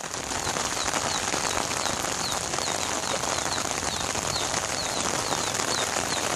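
Steady rain falling on water and ground, with a string of short, high chirps that drop in pitch, repeated two or three times a second.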